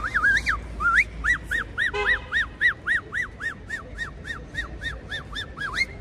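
A street performer whistling a fast, even run of rising-and-falling notes, about four a second.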